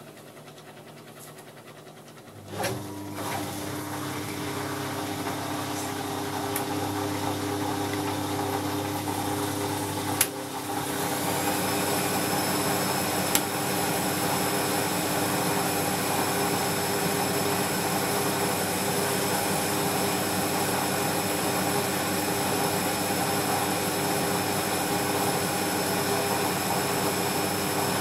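Wiatka 14 automatic washing machine's drum motor starting up about two seconds in and running steadily. After a click about ten seconds in, it rises to a faster spin with a steady high whine, spinning water out of the drained drum.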